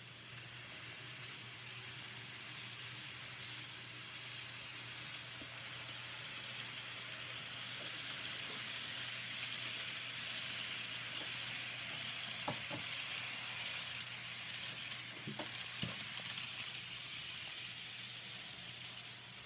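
Steady background hiss with a low hum, swelling slightly in the middle, and a few light knocks about two-thirds of the way through.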